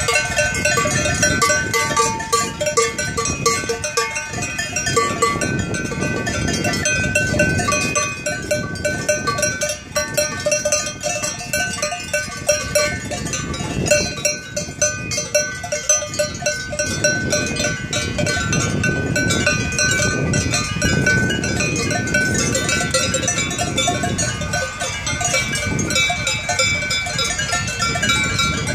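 Many cowbells on a herd of Brown Swiss cows ringing together, a continuous overlapping clanging as the cattle walk and graze.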